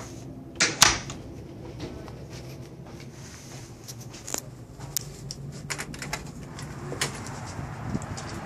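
Footsteps and knocks as a person walks to a door and opens it. There are two loud knocks just under a second in, then scattered sharp clicks from the door's knob and latch as the door is opened, all over a low steady hum.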